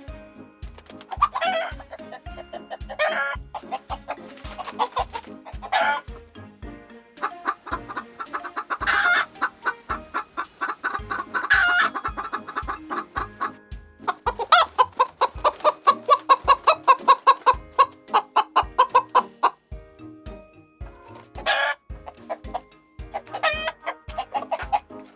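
Chickens clucking, with short crowing calls from a rooster every few seconds and a fast run of clucks in the middle. Background music with a steady beat plays underneath.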